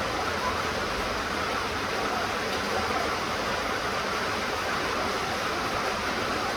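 Steady rain falling, an even hiss of rain with no distinct drops or breaks.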